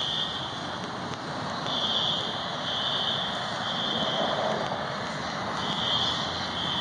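Fire alarm horns sounding the temporal-three evacuation pattern: three high beeps about a second apart, a pause, then three more. The speaker thinks they might be System Sensor SpectrAlert horns.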